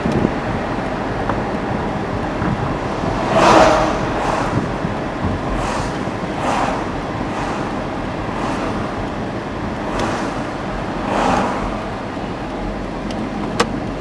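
Steady road traffic noise with vehicles swishing past, the loudest about three and a half seconds in and again near eleven seconds. A sharp click comes near the end.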